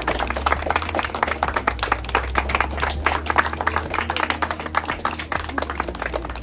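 A group of people applauding, many hands clapping quickly and steadily, over a steady low rumble.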